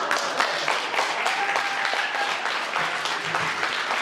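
Audience applauding: a dense spread of many hands clapping, holding steady before easing off at the end.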